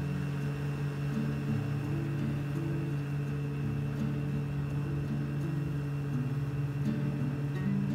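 River jet boat's engine running steadily under way, a constant drone over a steady rushing noise.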